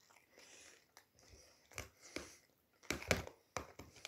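Close-up mouth sounds of chewing a mouthful of pasta salad, with a few sharp clicks and knocks of a fork against a plastic food tub in the second half.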